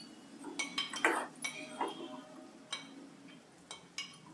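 Metal spoon scraping and knocking against a glass bowl as chicken keema mixture is scraped out into a steel pan: a run of irregular clinks, some with a brief ring.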